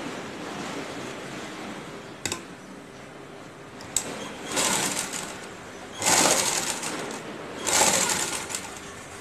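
Sewing machine stitching a piping seam into cotton fabric in three short runs of about a second each. Two sharp clicks come before the first run.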